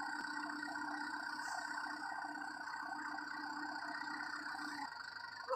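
Farm tractor engine idling steadily. A low note in its hum drops away near the end.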